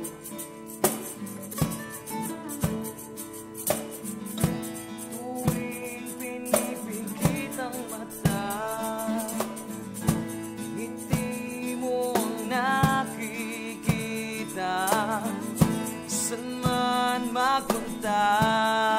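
Acoustic guitars strummed in a steady rhythm. A man starts singing about six seconds in and holds notes with vibrato toward the end.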